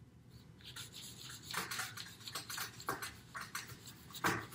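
Damp paper towel scrubbing and wiping across a laminate tabletop in short, irregular strokes, clearing off wet gesso; the strongest stroke comes a little past four seconds in.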